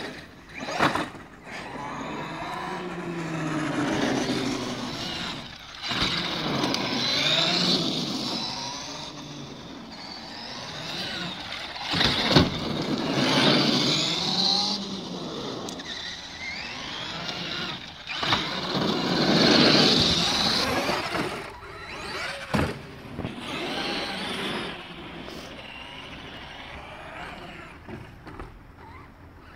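Traxxas X-Maxx electric RC monster truck driving hard, its brushless motor whining up and down in pitch with the throttle and its tyres rasping over rough asphalt. There are sharp knocks several times, about a second in, around 6 s, at 12 s and twice near 22 s, where the truck hits ramps or lands.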